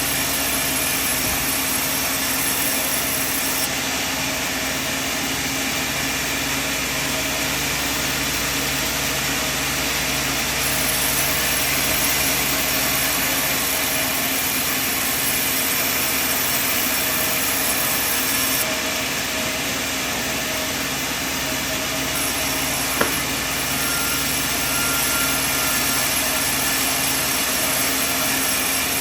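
Sawmill machine running steadily with a continuous mechanical drone and hum. A single sharp click sounds late on.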